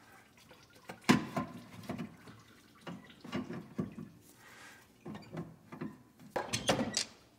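Channel-lock pliers clicking and scraping on the 2.3-litre Mazda 3's water pump as it is wrenched back and forth, a string of irregular metal knocks with a quick cluster near the end. The pump stays stuck: there is too little clearance to pull it out without raising the engine.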